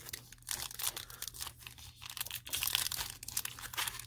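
2016 Topps Update trading-card pack wrapper being torn open by hand, with a run of crinkling and crackling.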